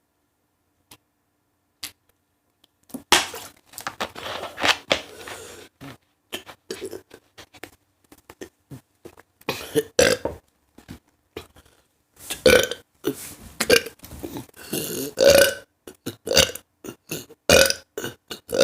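A woman burping repeatedly. A run of short burps starts about three seconds in, there is a pause of a couple of seconds, and then the burps come faster near the end.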